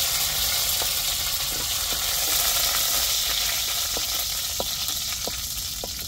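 Fresh curry leaves and fennel seeds sizzling in hot oil in a clay pot, stirred with a wooden spatula that scrapes and taps now and then; the sizzle slowly dies down.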